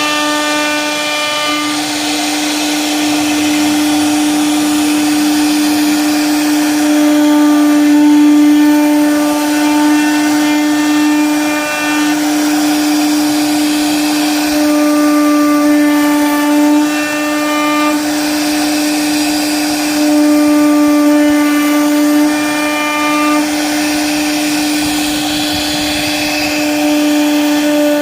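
An electric power tool's motor running steadily for the whole stretch, with a constant strong hum and a whine whose higher tones shift every few seconds over the noise of the work.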